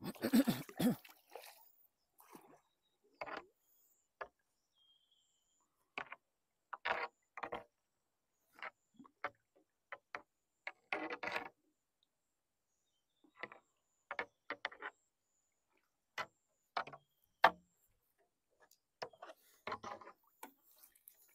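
A long bamboo pole plunging into the river and being pulled out to push a bamboo raft along: short water splashes and sloshes in separate bursts every second or two. The loudest comes about a second in.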